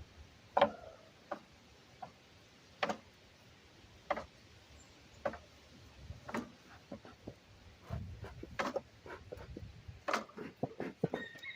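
Scattered light knocks and clicks, a few seconds apart at first and coming in quicker runs in the last few seconds. Near the end a bird gives a short whistled call.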